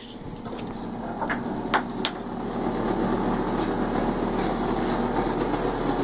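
A few light knocks, then a steady mechanical whirr that slowly grows louder: a Craftsman benchtop belt-and-disc sander running.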